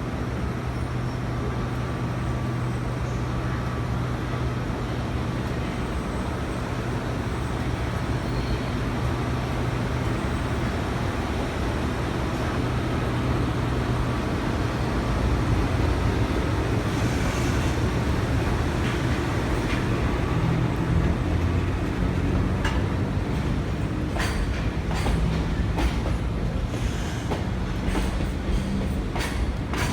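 Freight train hauled by a JR EF65 electric locomotive rolling along the track, with a steady low electric hum. From about two-thirds of the way in, the wheels click sharply over rail joints as the wagons go by, the clicks coming closer together near the end.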